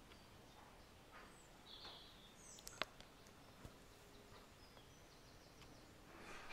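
Near silence: faint background hiss with a few faint high chirps and one sharp click just under three seconds in.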